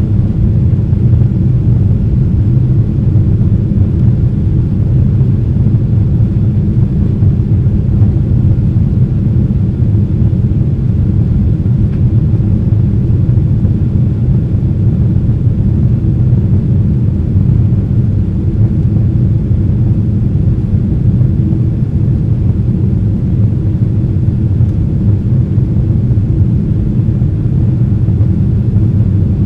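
Boeing 767-300's GE CF6 turbofan engines heard from inside the cabin: a loud, steady, deep rumble with no change in pitch or level.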